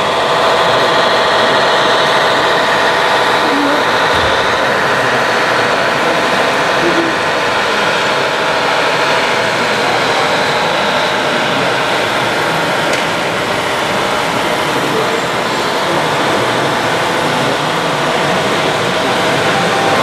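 Radio-controlled model trucks running, a steady mechanical drone with faint steady tones, over the constant din and chatter of a crowded hall.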